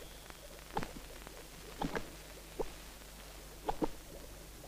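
A man gulping a drink from a vessel: several short swallowing sounds, about a second apart.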